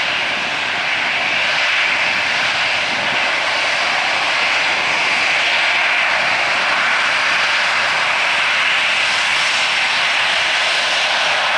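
Boeing 737-800's CFM56-7B turbofan engines running at taxi power as it rolls past, a steady, loud jet rush.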